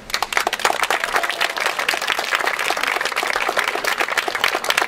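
An audience applauding: a dense, fast patter of many people clapping that breaks out all at once.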